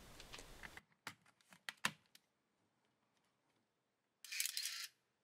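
Faint sharp clicks of plastic and metal as a shoe-mount flash unit is slid onto a Yashica film SLR's hot shoe: four clicks within about a second. About four seconds in comes a short mechanical rasp of about half a second from the camera as it is worked for the function test.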